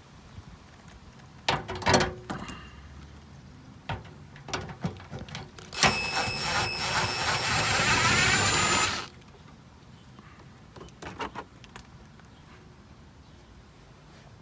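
Handheld power tool running for about three seconds, starting about six seconds in and stopping sharply, as it spins out a fender bolt. A few knocks and clatters of tool handling come before it.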